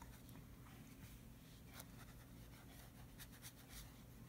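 Faint strokes of a wet paintbrush on watercolour paper, a few soft scratches over a low steady hum.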